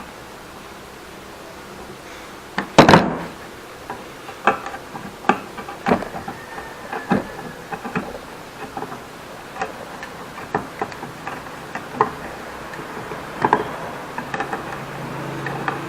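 Mallet striking a wood chisel while chopping out a dado in timber by hand: irregular knocks, one louder about three seconds in.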